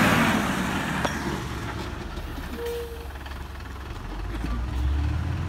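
Diesel engine of a loaded Hyundai HD260 dump truck running, its low rumble dipping a little midway and swelling again in the last second and a half.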